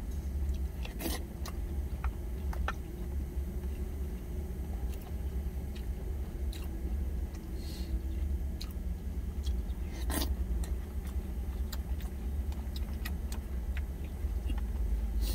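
Someone eating snail doenjang soup with rice from a plastic container: a metal spoon clicking against the container and chewing, with two louder clicks about a second in and about ten seconds in, over a steady low rumble.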